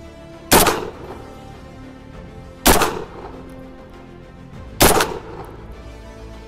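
Rock Island Armory VR80 12-gauge semi-automatic shotgun firing three shots about two seconds apart, each report followed by a brief echo.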